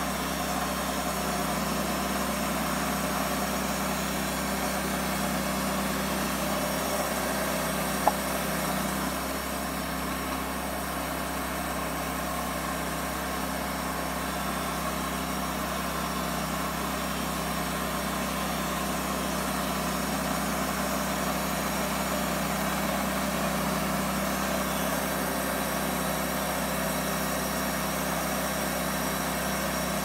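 Wood-Mizer LT40 portable band sawmill running steadily, with its Lathe-Mizer attachment turning the log. A single sharp click about eight seconds in.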